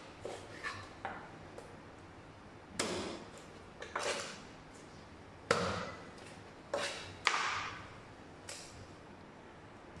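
Knife cutting raw tuna into chunks on a wooden cutting board, with pieces of fish and the knife knocked and laid down on the board: about ten sharp, irregular knocks, the loudest about five and a half and seven seconds in.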